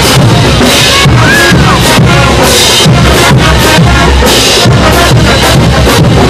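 Diablada band music played loud and distorted, with a pounding bass drum and crashing cymbals driving a steady beat.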